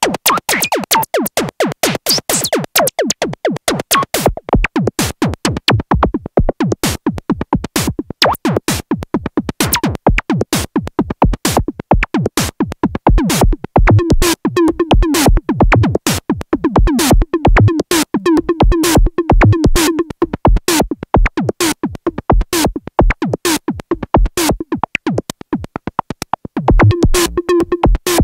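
Korg Monologue analog monophonic synthesizer playing a fast sequenced line of short, clipped, percussive notes. From about halfway through, a steadier pitched note sounds under the rapid pulses.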